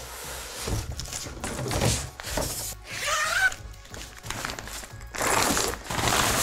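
Cardboard box and a clear plastic dust cover rustling as a hard-shell suitcase is pulled out and unwrapped, with a couple of knocks as it is set on the table and a long rustle near the end as the cover comes off. Background music underneath.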